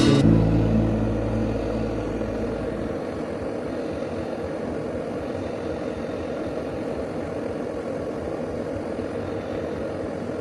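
A steady mechanical hum, like a small electric motor running, with a low drone that fades out about three seconds in.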